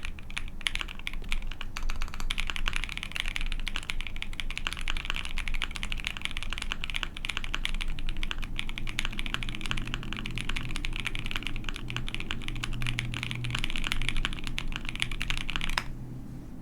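Continuous fast typing on an Ai03 Vega mechanical keyboard with a POM plate, lubed Penyu linear switches and GMK Cafe keycaps: a dense run of rapid keystrokes. The typing stops abruptly just before the end.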